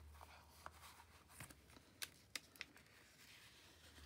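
Faint paper handling: soft rustles and a few light clicks and taps as a card slide is pushed into a kraft paper envelope pocket.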